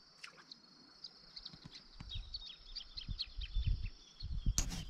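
Small birds chirping in quick, short calls over a steady high-pitched drone, with low thumps of handling noise and one sharp knock near the end.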